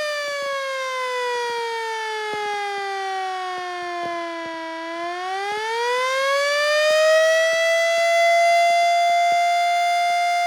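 Yahagi S-10 motor-driven mechanical siren with a single-phase 220 V, 2 hp motor, sounding a loud wail. Its tone slides down to about half its pitch over the first four or five seconds, then climbs back up over about two seconds and holds a steady high note.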